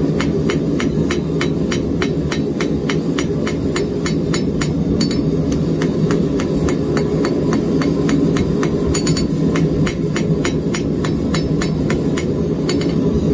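Hand hammer striking red-hot steel flat stock on an anvil in quick, even blows, about four a second, over a steady low roar. The hammering draws down and blends a freshly made forge weld in a folded bar.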